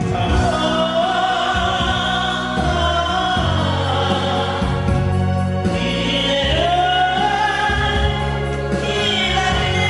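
A group of voices singing a Korean ballad together over an instrumental backing track, with long held notes and a short break between phrases in the middle.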